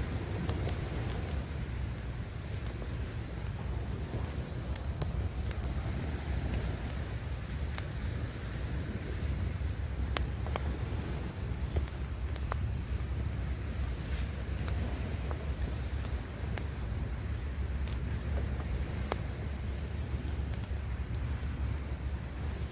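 Wood fire crackling, with scattered sharp pops, over a steady low rumble of sea waves.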